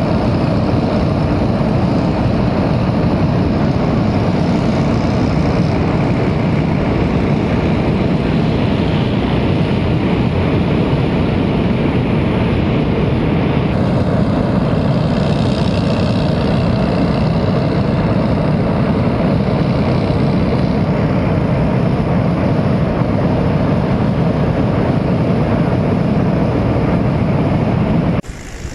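Floodwater rushing through and below the gates of a dam spillway: a loud, steady roar. Its tone shifts a little about halfway through.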